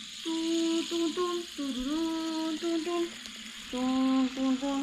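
A girl humming a tune: a string of held notes that step up and down in pitch, with a short pause about three and a half seconds in.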